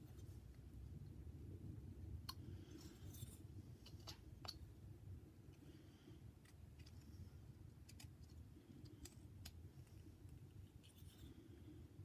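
Faint scraping of a small whittling knife making fine cuts in a carved wooden head, with scattered sharp ticks as the blade bites and snaps off chips, over a low steady hum.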